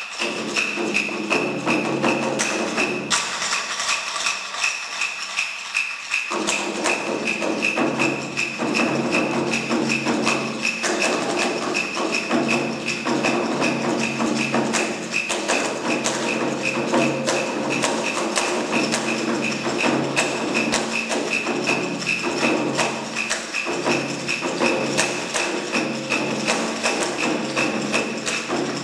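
Chinese drum ensemble and Chinese orchestra playing together: rapid, dense strokes on large barrel drums over steady held notes from the orchestra, the sound growing fuller about six seconds in.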